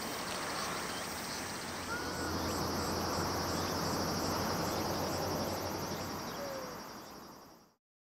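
Insects chirring steadily, a high trill pulsing about two to three times a second, with a couple of short bird calls and a soft background hiss. It all fades out near the end.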